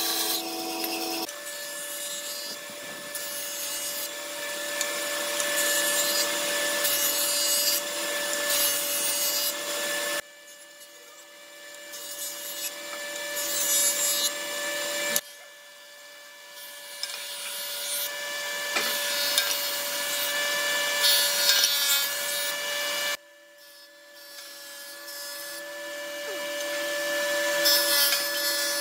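Woodworking machines cutting wooden pieces: a band saw, then a jointer and a thickness planer. Their motors hum steadily under the noise of the blades cutting wood. The sound drops off suddenly three times, and each time it builds back up as the next pass goes on.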